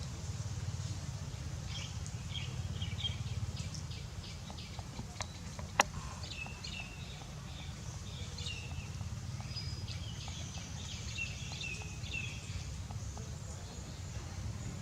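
Repeated short, high chirping calls from an animal over a steady low rumble, with one sharp click about six seconds in.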